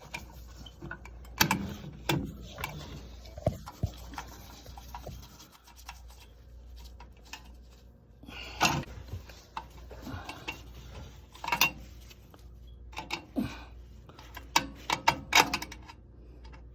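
Hands working a replacement Honeywell aquastat relay into place: scattered rubbing, scraping and clicks of plastic and metal parts, over a steady low hum.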